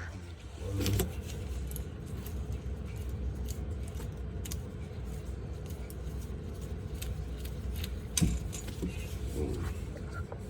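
Scattered metallic clinks and ticks of hand tools at the brake caliper, over a steady low hum.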